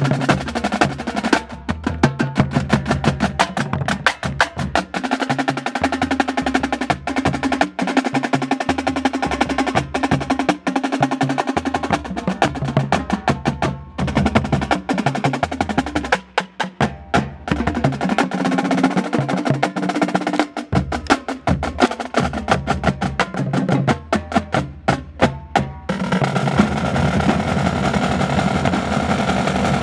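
Marching band drumline (battery: snare drums, tenor drums and pitched bass drums) playing a fast percussion passage of dense rapid strokes and rolls, with the bass drums moving between pitches. About 26 seconds in it changes to a sustained, steadier roll.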